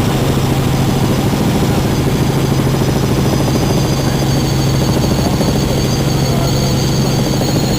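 Helicopter in flight: steady, loud rotor and engine noise with a low hum and a faint high whine above it.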